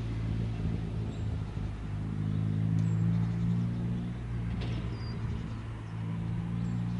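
A piston engine running steadily at low speed, a low hum made of several steady tones that fades slightly in the middle and comes back.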